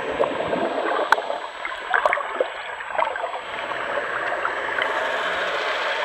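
Water heard underwater just below the surface: bubbles and churning water with a few sharp pops in the first three seconds, settling into a steady hiss.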